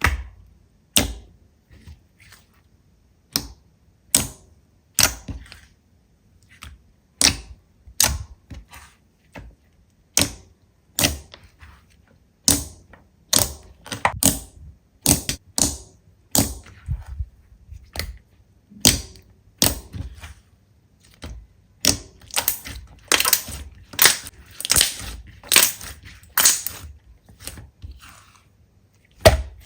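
Slime being squeezed and pressed by hand, giving sharp crackling pops, about one a second at first and coming faster and closer together near the end.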